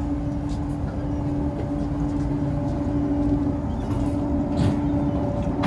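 Steady machinery hum from the warship, a single low drone with a fainter tone an octave above, over an uneven rumble of wind on the microphone. A few faint knocks come through, the clearest just before the end.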